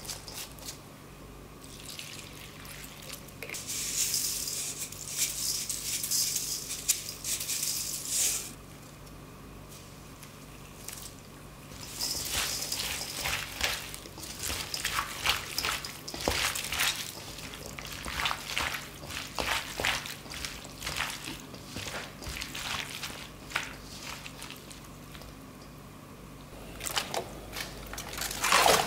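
Gloved hand tossing sliced squid with green onion and garlic in a stainless steel bowl: irregular wet squishing and rustling, starting about twelve seconds in. Earlier there is a steady hiss lasting about four seconds.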